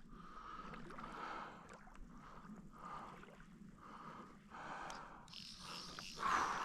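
A person breathing hard in quick, even breaths, about one every two-thirds of a second, with a heavier breath near the end: the angler out of breath with excitement over a big brown trout.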